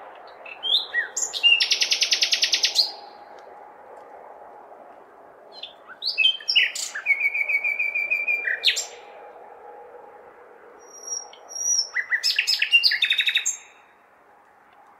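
A nightingale singing three separate phrases, each a couple of seconds of fast repeated notes and trills, with pauses between. Under the song runs a steady distant city hum.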